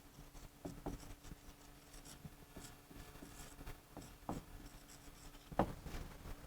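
Faint writing: a pen moving over a writing surface in short scratchy strokes and light taps, the strongest near the end, over a low steady hum.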